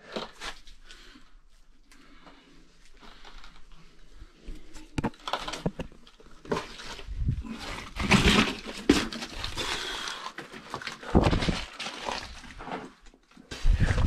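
Irregular scuffing, scraping and rustling of a person moving through a cramped mine passage close to the microphone. It grows busier a few seconds in, with several louder scrapes and knocks.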